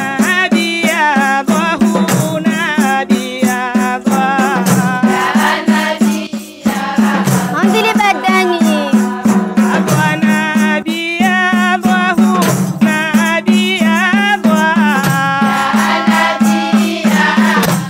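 A group of women singing a devotional song together, accompanied by a frame drum and jingle tambourines beating a steady rhythm.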